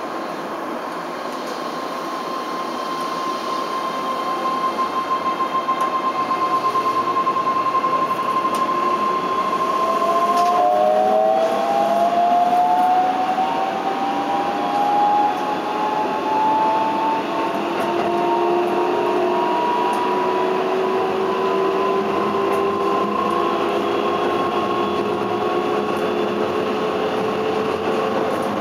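Keihan 10000 series car 10101's IGBT-VVVF inverter and traction motors accelerating away from a standstill, heard from inside the car. For the first ten seconds or so there is a steady high whine. At about ten seconds it changes to several tones that climb in pitch as speed builds, over a growing rumble of the train running on the rails.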